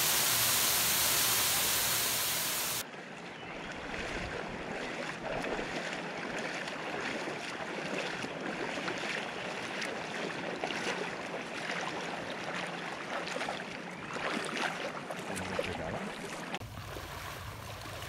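Waterfall rushing in a steady, loud hiss for about three seconds, then cut off abruptly. After it, shallow river water with repeated splashing of people wading through it on foot.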